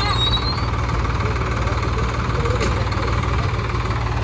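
Tractor diesel engine running steadily, a low rumble with a fast, even beat.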